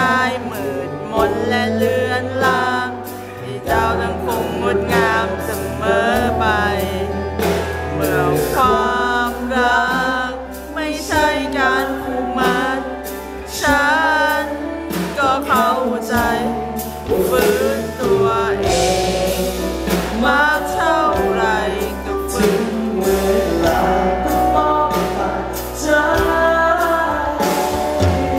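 A male singer sings a Thai pop song live into a handheld microphone, backed by a live band and amplified through a concert sound system.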